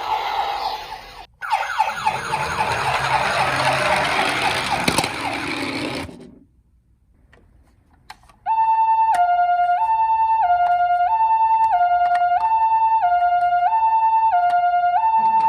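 A loud rushing noise for the first few seconds, briefly cutting out once, then fading away. After a short quiet gap, a toy ambulance's electronic siren starts a clean two-tone hi-lo "pee-po" call, the Japanese ambulance pattern, alternating high and low about once every 1.3 seconds.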